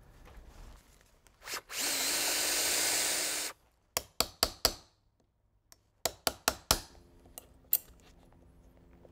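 A cordless drill boring the deadbolt hole in a door jamb runs for about two seconds and stops abruptly. It is followed by sharp hammer taps on a wood chisel cutting the recess for the strike plate: four quick taps, a pause, five more, then two single taps.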